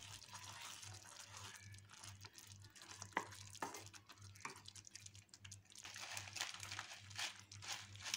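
Wooden spatula stirring thick, bubbling oats kesari in a pan: faint wet stirring and sizzling, with a few light knocks of the spatula against the pan around the middle.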